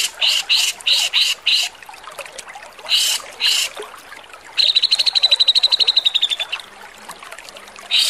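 Grey-cheeked bulbul (cucak jenggot) giving harsh, rasping calls, a quick series of about three a second, then two more a second later. This is followed by a rapid, clear trill of about ten notes a second that falls slightly in pitch over two seconds.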